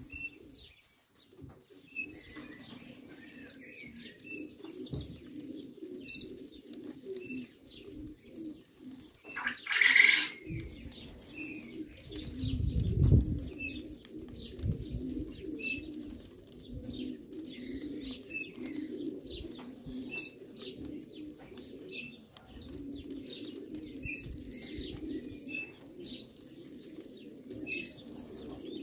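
Racing pigeons cooing in a steady throaty murmur, with short high chirps every second or so. There is a brief loud rush of noise about ten seconds in and a low rumble a few seconds later.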